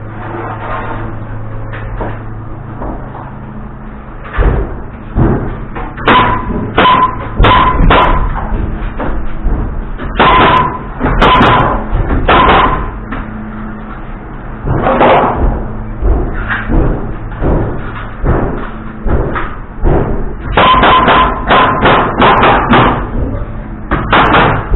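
Hammer driving nails into wooden framing lumber: several runs of quick blows, each hit with a short metallic ring.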